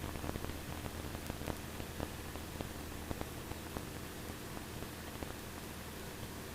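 Faint static hiss of an aircraft radio and intercom feed between transmissions, over a low steady hum. A few crackling clicks die away in the first couple of seconds.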